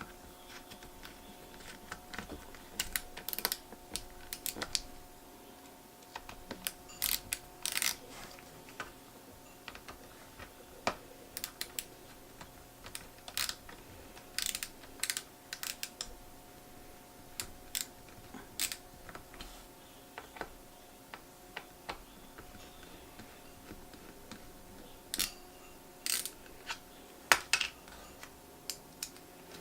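Irregular small clicks and taps of a precision screwdriver and small screws against metal as a laptop's hard-drive bracket is screwed down, over a faint steady hum.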